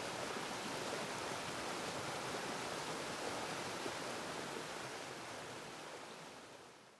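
Steady rushing water, an even hiss with no distinct splashes, fading out over the last couple of seconds.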